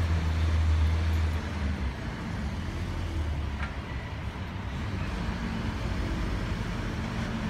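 Steady low hum of a nearby idling motor vehicle engine, a little louder for the first second or so.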